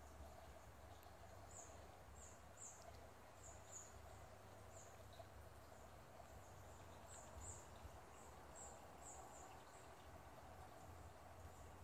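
Near silence with faint, short high-pitched chirps recurring irregularly, several every few seconds.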